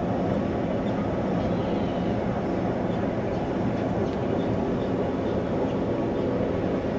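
Steady low rumble of a cruise ship's engines and machinery, heard from the open deck as the ship gets under way, with an even noise and a faint steady hum.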